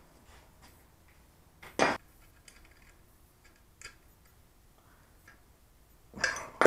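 Scattered light clicks and knocks of roller skate wheels and steel square tubing being handled on a workbench, with one sharper knock about two seconds in and a short, longer noise near the end.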